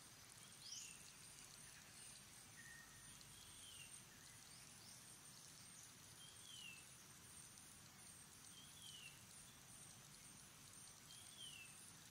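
Faint, short high calls that slide downward, repeated five times about every two to three seconds, the first one steeper and louder, over a faint steady high-pitched hiss.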